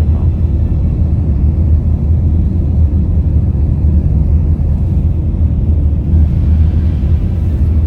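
Tour coach running, a steady low engine and road rumble heard from inside the cabin.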